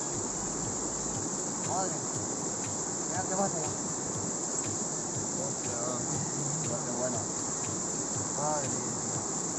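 Mountain stream rushing over rocks close by, a steady even hiss.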